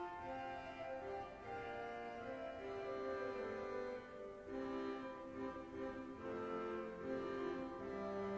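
Cathedral pipe organ playing a slow passage of several held voices that move in counterpoint, with a new low note entering near the end.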